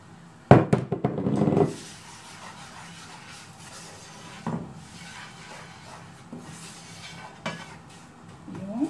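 Wooden spatula stirring garlic and herbs in oil in a frying pan, scraping against the pan with a few light knocks. A sharp knock about half a second in is followed by about a second of louder scraping.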